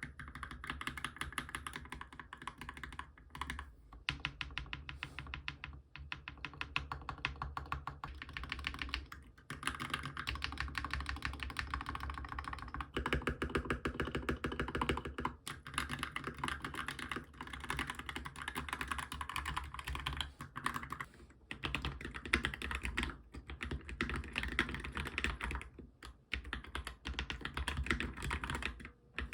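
Fast typing on a Monstargear MK308 optical mechanical keyboard with fully lubricated switches. The keystrokes are rapid and continuous, with a few brief pauses.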